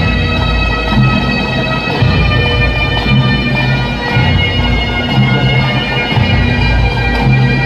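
Pipe band of Great Highland bagpipes playing a processional march, the steady drones held under the chanter melody.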